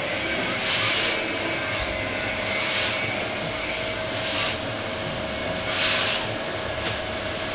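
Gas-fired 10 kg drum coffee roaster running: a steady mechanical noise with a steady hum, and a hiss that swells about every one and a half to two seconds.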